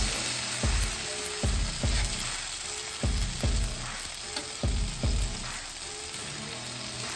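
Tortillas filled with birria beef and cheese sizzling steadily in grease on a flat-top griddle, with metal spatulas scraping as the tacos are folded and turned.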